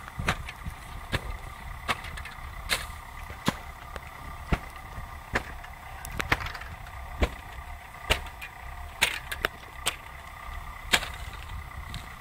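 Dry reeds snapping and cracking in a reed-bed fire, with sharp cracks about once a second over a steady hiss.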